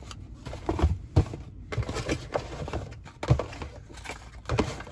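Small cardboard toy-car boxes being handled: a run of sharp taps and knocks with rustling scrapes between, as the boxes are set down on a table and pulled from a cardboard display case.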